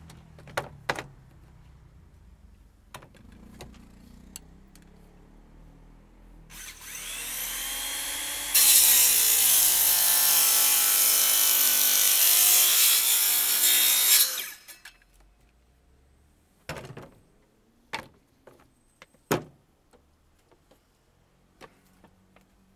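Hand-held electric circular saw spins up with a rising whine about six seconds in, then cuts loudly through thin wooden drawer boards for about six seconds before the noise drops away. Sharp wooden knocks come before and after as boards are handled and set down.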